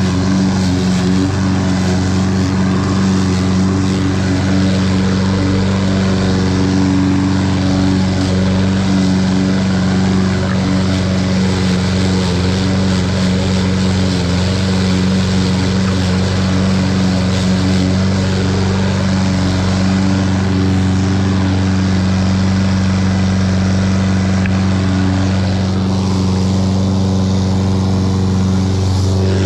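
Toro 21-inch walk-behind lawn mower's engine running steadily at cutting speed while mowing grass with a new mulching blade.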